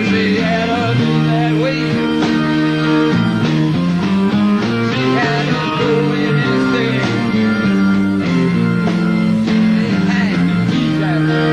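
Live rock band playing: electric guitars holding sustained chords over bass and a steady drum beat.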